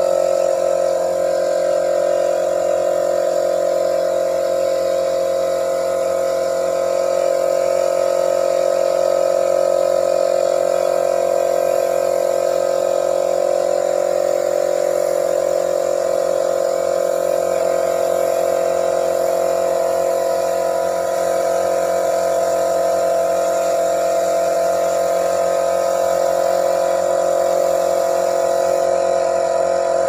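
Air compressor and gravity-feed spray gun running steadily: a loud, even hum with an airy hiss as the gun sprays wood finish.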